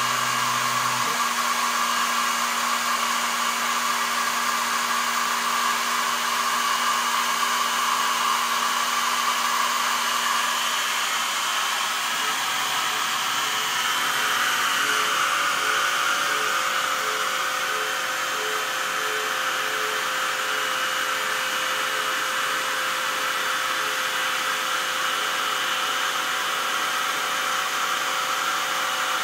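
Sherline CNC mill running a warm-up program: a steady motor whir with its spindle on, while the stepper-driven axes traverse at about 32 inches a minute. The whining tones shift pitch as the moves change, about a second in and again around twelve seconds in.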